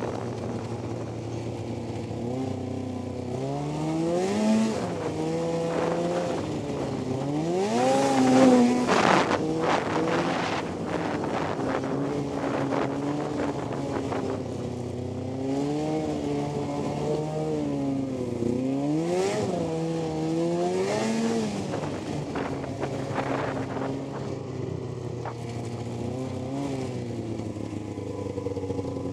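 1998 Polaris Indy XC 600 snowmobile's two-stroke engine running on the trail, its pitch climbing and dropping again and again as the throttle is opened and eased off. Wind rushes over the helmet microphone, loudest about a third of the way through.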